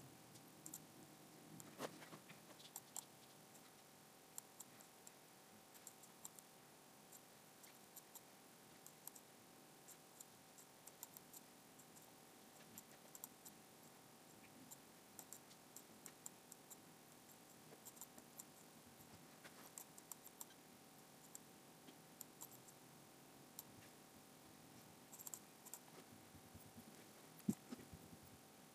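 Faint, irregular computer mouse clicks, several a second at times, with one louder click near the end, over near silence and a faint steady high hum.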